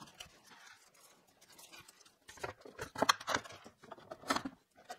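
Handling noise from an insulated concrete form, its expanded-polystyrene foam panel and plastic ties scraping and knocking as it is stood up and set on a plywood tabletop. It is faint at first. From about two seconds in comes a run of scratchy scrapes and knocks, loudest around the middle and again near the end.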